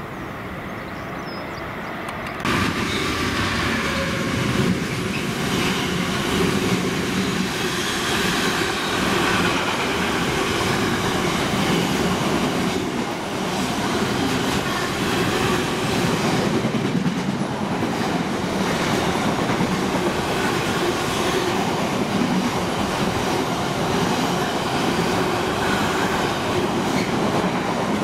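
For about the first two and a half seconds a Southern electric multiple unit approaches, fairly quietly. Then a container freight train passes through the station close by with a loud, steady rumble and the clickety-clack of its wagon wheels over the rail joints.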